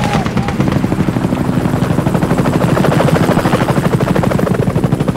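Military helicopter's rotor beating in a fast, even chop as it flies close overhead during an attack.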